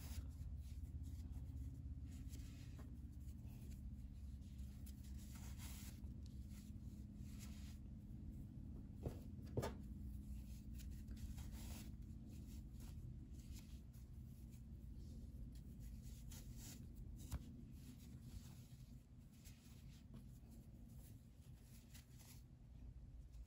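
Faint rustling and rubbing of yarn as crocheted vines are handled and pulled through a crocheted piece, with two small knocks about nine seconds in.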